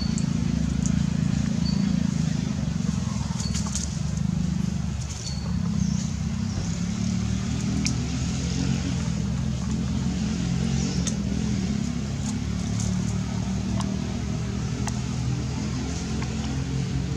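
Steady low mechanical hum, like a motor running, with scattered light clicks and a few short high chirps in the first few seconds.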